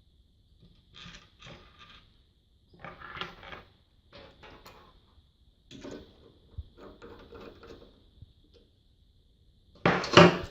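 A 3.5-inch hard drive being slid into and settled in a metal drive bay of a PC case: a series of irregular scraping and rattling bursts of metal on metal, with a louder clunk near the end.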